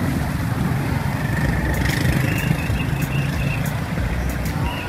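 Street ambience: a steady low engine rumble of road traffic, with a few faint short high tones and clicks over it.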